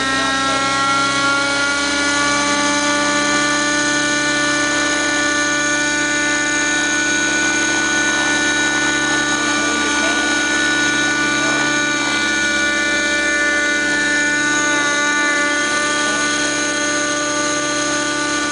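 Nitro-engined radio-controlled helicopter running at flying speed: the steady, loud whine of its small glow engine and rotors. The pitch rises a little over the first two seconds, then holds.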